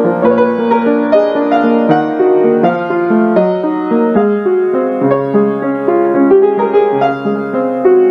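Background piano music, a continuous flow of notes and chords.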